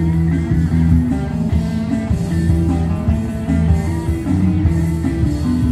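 Band playing rock music, guitar over a steady bass line.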